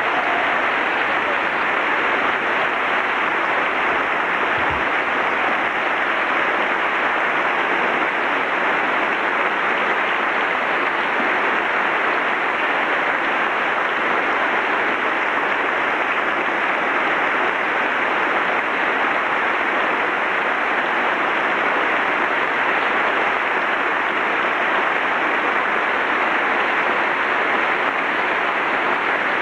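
A large crowd in a big hall applauding: a long, even wash of clapping that holds at one level throughout.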